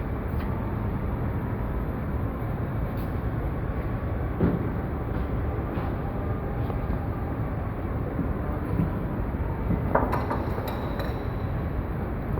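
Lathe running with a steady mechanical rumble and a faint whine. There is a single knock about four and a half seconds in and a short cluster of knocks about ten seconds in.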